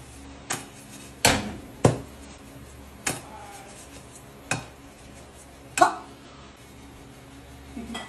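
A metal frying pan clanking on a gas stove's grates as it is handled: six sharp knocks spread over about five seconds, each with a short ring.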